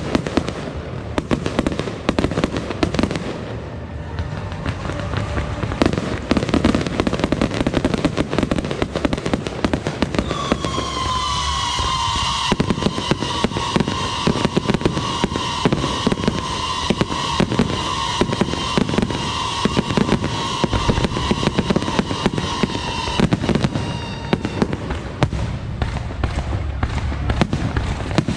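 Fireworks and firecrackers going off in a dense, continuous crackle of bangs. About ten seconds in, a shrill, wavering whistle starts with a short falling glide and runs over the crackling for roughly twelve seconds before fading out.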